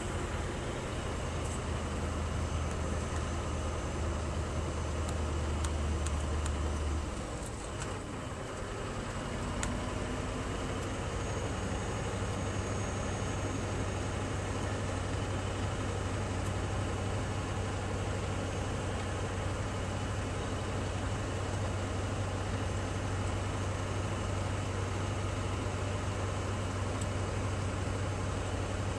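Scania R620's V8 diesel engine running, heard from inside the truck cab as a steady low drone over road noise. About seven seconds in, the drone briefly drops away and then returns at a slightly higher pitch.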